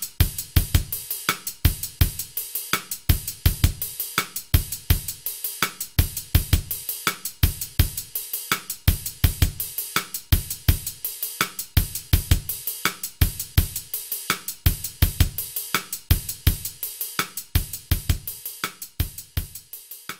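Outro music with a steady, driving drum-kit beat: kick drum, snare, hi-hats and cymbals.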